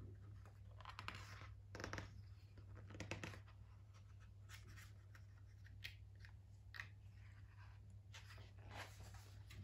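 Near silence: faint rustles of a hardback picture book's paper as it is held open and shifted in the hands, over a low steady hum.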